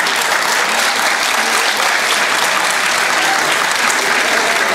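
Audience applauding steadily, dense clapping throughout.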